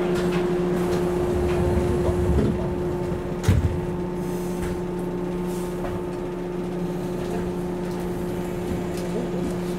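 Inside a standing Series 113 electric train car: a steady electrical hum in several tones over a low rumble, broken by one heavy thump about three and a half seconds in, the sound of the sliding doors shutting.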